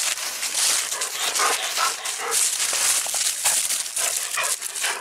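Dogs playing in dry fallen leaves, the leaves rustling and crunching under them, with a few short dog vocal sounds about a second and a half in and again near the end.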